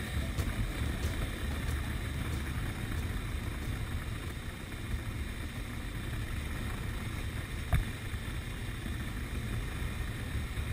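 Motorcycle engine running at a steady cruising pace, with wind noise on the microphone. A single thump about three-quarters of the way through.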